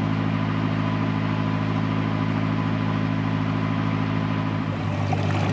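A narrowboat's diesel engine running steadily, a low even drone. Its note changes slightly near the end.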